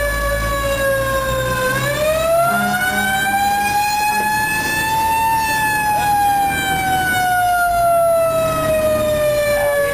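Fire engine siren wailing over the truck's engine. Its pitch climbs slowly from about two seconds in, peaks near the middle, then slowly falls away.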